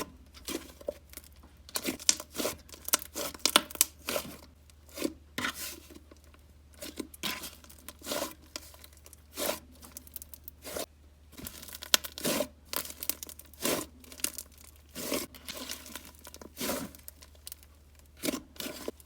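Soft, sizzly slime being stretched, folded and squished by hand, giving irregular crackling and tearing pops as air pockets burst, several a second.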